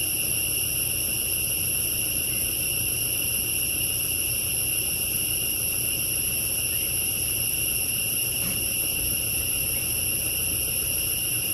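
A steady forest insect chorus: a shrill, high-pitched drone at several pitches that holds without a break, over a low steady hum.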